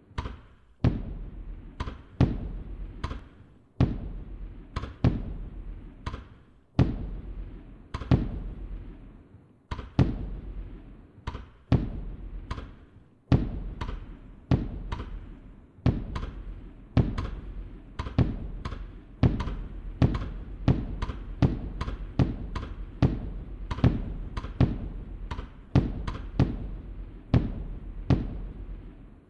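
Fireworks bursting: a long series of sharp bangs, each trailing off, about one a second at first and coming faster, roughly two a second, later on.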